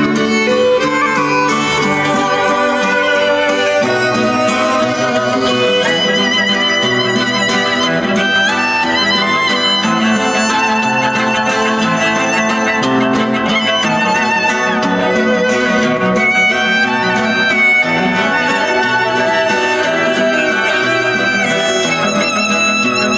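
Instrumental music with a violin melody over guitar accompaniment, played through a car's aftermarket audio system of US Amps amplification and Morel speakers.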